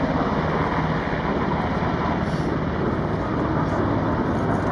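HH-60 Pave Hawk helicopter hovering low and settling toward the ground, its main rotor chopping steadily with engine noise underneath.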